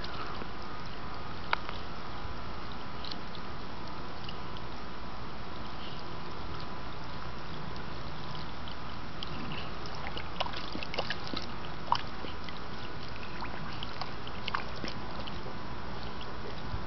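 Water sloshing and trickling in a small wading pool as a yellow Labrador moves about in it, with a few sharp splashes, most of them around ten to twelve seconds in, over a steady background hiss.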